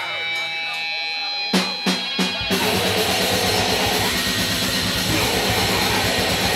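Live heavy metal band: sustained ringing electric guitar tones, then a few sharp drum hits about a second and a half in, and the full band crashes in at a fast rhythm with heavy distorted guitar and drums.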